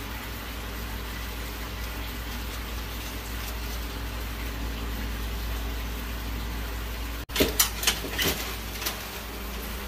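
Steady rushing background noise with a low hum. About seven seconds in it breaks off suddenly and a quick cluster of five or six sharp knocks and clatters follows.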